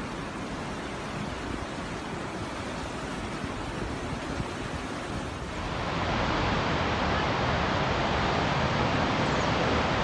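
Steady rush of flowing river water. A little past halfway it cuts to a louder, fuller rush of turbulent whitewater rapids.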